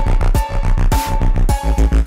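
Background electronic music with a steady beat of about two strokes a second over held synth tones.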